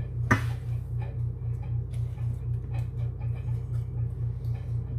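A steady low hum, pulsing evenly, with a light knock about a third of a second in as a measuring cup of yeast is tipped into a stainless steel bowl. Faint soft sounds of hands mixing the yeast into the eggs and butter in the flour follow.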